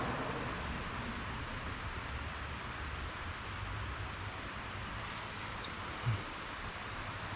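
Steady outdoor background hiss with a few faint, short, high bird chirps, and a soft low bump about six seconds in.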